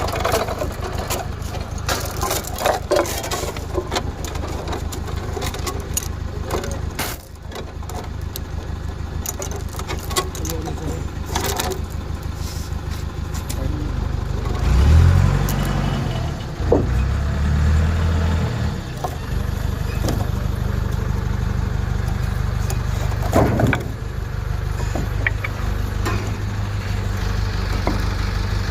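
A crane's engine running steadily under load, with its pitch rising and falling for a few seconds about halfway through as it is revved, and scattered knocks and clatter.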